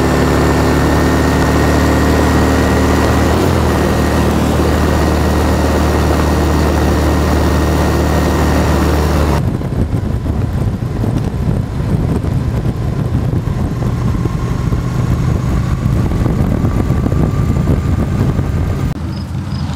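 Motorcycle engine running steadily at road speed, with wind rushing over the handlebar-mounted microphone. About halfway through, the wind noise drops away abruptly and the engine's steady hum comes through more plainly.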